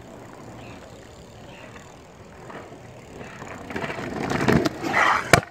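BMX bike wheels rolling on pavement, growing louder as the bike comes closer, then a single sharp knock near the end.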